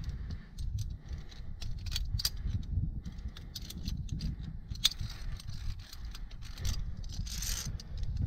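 Sharp metallic clicks and jangles of via ferrata climbing gear (carabiners and lanyard hardware) knocking and clipping, over a steady low rumble on the microphone.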